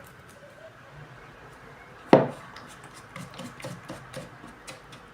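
Hair dye and developer being stirred in a small mixing bowl: one sharp knock about two seconds in, then a run of quick taps and scrapes against the bowl.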